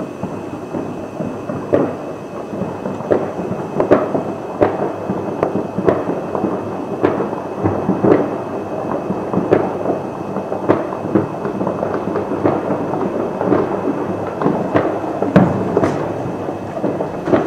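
New Year's Eve fireworks and firecrackers going off all around: a continuous rumble of distant bangs with sharper, louder cracks about every second.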